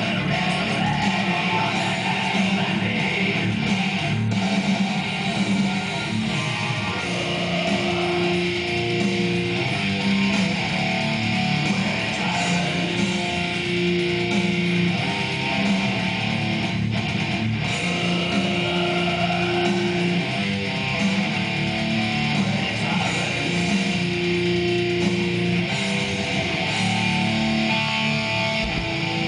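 Background music led by guitar, a steady rock track with held notes.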